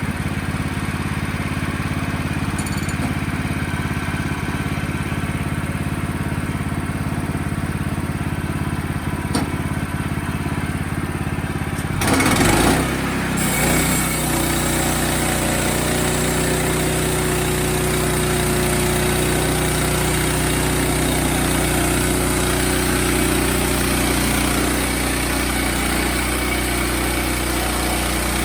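Wood-Mizer portable sawmill's engine running steadily. About halfway through there is a brief loud burst, and after it the sound is fuller, with a steady hiss added on top of the engine.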